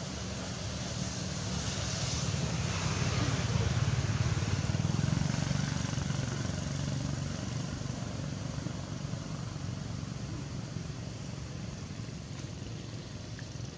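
A motor vehicle's engine running off-screen, with a steady low hum that swells to its loudest about four to five seconds in and then slowly fades, like a vehicle passing by.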